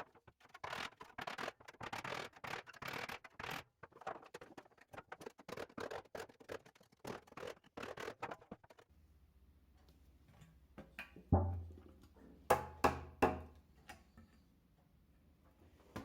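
Workshop handling noise: rapid scraping and clattering for about nine seconds, then a faint low hum with four hard knocks, the first of them the loudest.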